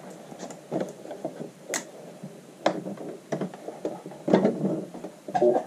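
Cotton fabric being handled and slid into place under a sewing machine's presser foot: soft rustling with irregular small clicks and taps, the sharpest a little under two seconds in.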